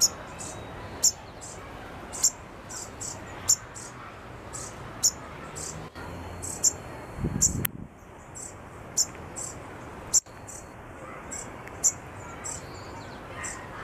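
White-crowned sparrow giving short, high chip calls over and over, the loudest about once a second with fainter ones in between. A brief low rumble comes about seven seconds in.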